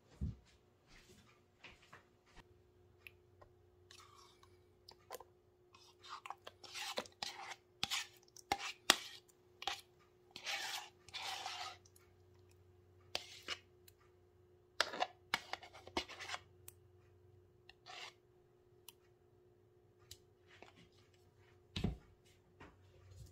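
Plain yogurt being spooned into a plastic mixing bowl: irregular scrapes, clicks and knocks of a spoon against plastic, heaviest in the middle, with a single low thump near the end. A faint steady hum sits underneath.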